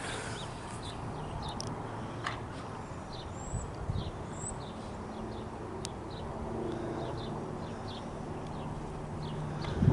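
Distant helicopter giving a faint, steady low drone, with small birds chirping over it again and again.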